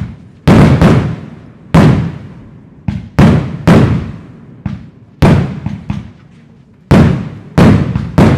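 Aerial firework shells bursting one after another: about a dozen sharp, loud bangs at uneven intervals, each dying away over about a second.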